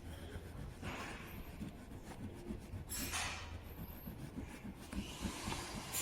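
Hands working on machine parts, fitting the conveyor felt: faint rubbing and shifting, with brief scraping swishes about one and three seconds in.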